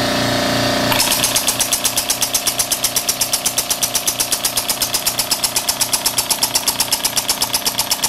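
Small single-cylinder engine converted from a two-stroke generator, running on compressed air through a solenoid inlet valve. From about a second in it gives an even train of sharp exhaust puffs and valve clicks, roughly eight a second.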